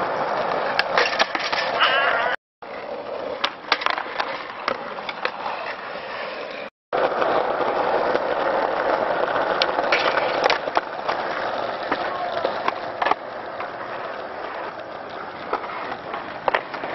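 Skateboard wheels rolling over rough parking-lot asphalt, a steady rushing noise with sharp clacks of the board throughout. The sound cuts out completely twice, about two and a half and seven seconds in, where short clips are spliced together.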